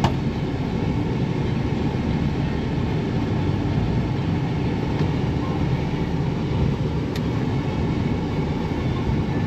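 Steady rumble of a vehicle driving along, engine and road noise without let-up.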